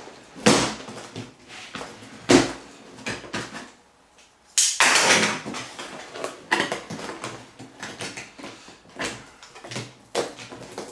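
Large cardboard box being handled: a knife slicing through its tape seals, then the box turned over and set down flat on a table, giving a string of sharp scrapes, rustles and knocks. The longest, roughest scrape comes a little under halfway through.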